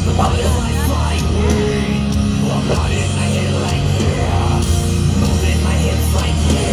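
Loud rock music with a heavy bass line, played over a stage show's sound system.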